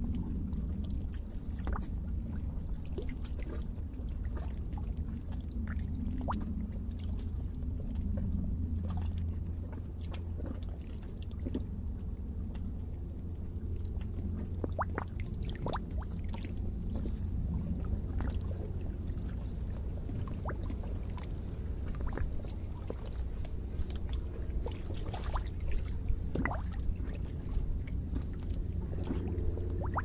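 Lake water bubbling at the shore's edge: many small, irregular bubbling pops and gurgles over a low steady rumble.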